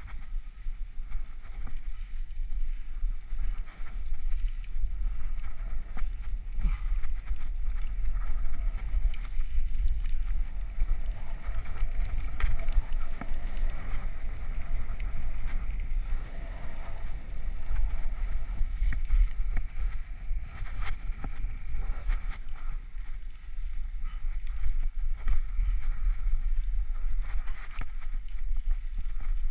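Bicycle rolling over cracked, rough asphalt, with wind buffeting the action camera's microphone as a steady low rumble and many small clicks and rattles from the bumps.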